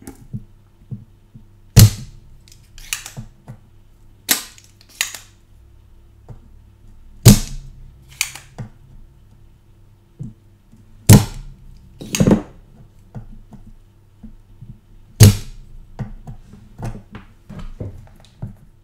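Spring-loaded desoldering pump (solder sucker) firing four times, about four seconds apart, each a sharp loud snap followed by quieter clicks as it is re-cocked and set against the board: solder is being sucked out of through-holes that filled up during tinning.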